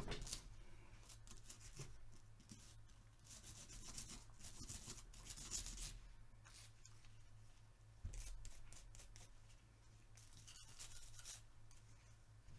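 A cleaning brush scrubbing the stripped metal parts of a Tec-9 pistol, faint scratchy strokes that come in several bursts with short pauses between them.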